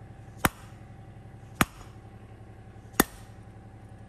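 Three sharp blows of an orange plastic-faced mallet driving a metal bushing into a brush hog tail-wheel hub, spaced a little over a second apart.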